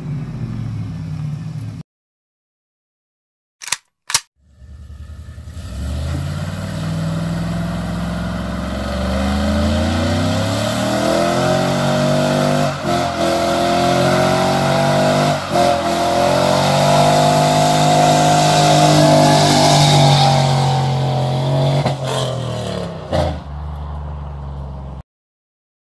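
GMC Sierra's 5.3-litre V8, breathing through long-tube headers, a catless Y-pipe and a 4-inch tip, accelerating hard: the exhaust note climbs, breaks twice for upshifts, climbs again to its loudest, then drops and fades as the truck passes and pulls away. A short gap of silence near the start.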